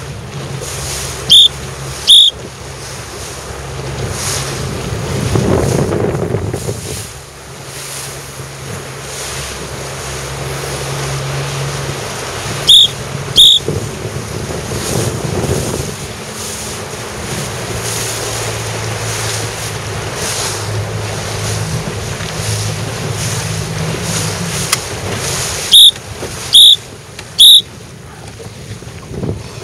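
A motorboat's outboard motor running at low speed, its pitch dropping a little partway through, with wind buffeting the microphone and water rushing past. Short, loud, high-pitched beeps cut through: twice about a second in, twice about halfway, and three times near the end.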